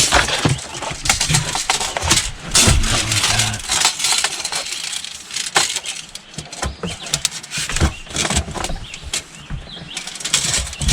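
Irregular clicks, knocks and low thuds of handling and moving about on a boat's floor while it is measured out for cutting.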